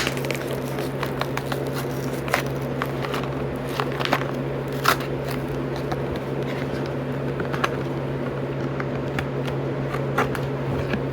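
Plastic blister packaging and card backing of a Hot Wheels Premium die-cast car being pried and torn open by hand: irregular crackles, crinkles and scrapes, over a steady low hum.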